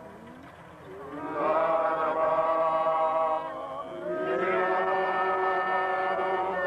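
Voices chanting in long held notes. After a brief lull, one phrase begins about a second in and a second begins about four seconds in, sliding up at its start and then holding steady.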